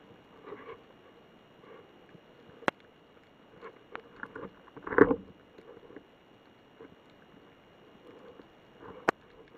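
Underwater ambience through a camera housing: scattered sharp clicks and small knocks, with a louder cluster of knocks about five seconds in, over a faint steady high tone.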